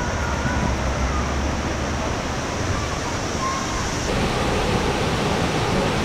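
Rushing water of a mountain stream and small waterfall pouring over rocks into a pool: a steady, even rush. The sound shifts in character about four seconds in.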